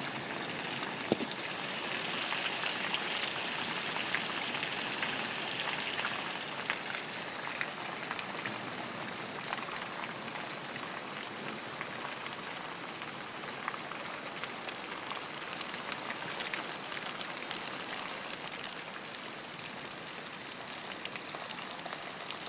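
Steady rain falling, a continuous hiss with scattered sharp ticks of drops striking nearby. It is a little heavier for a few seconds near the start.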